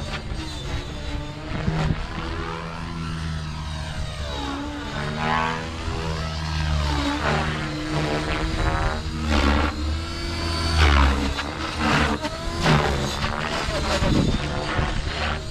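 Blade Fusion 550 electric RC helicopter in flight, its rotor blades and motor whirring with a pitch that rises and falls as it moves and manoeuvres.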